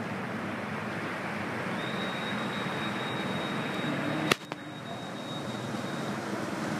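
Motorbikes riding through floodwater on a street, a steady wash of engine and water noise. A thin high steady tone sounds through the middle, and a single sharp click comes about four seconds in.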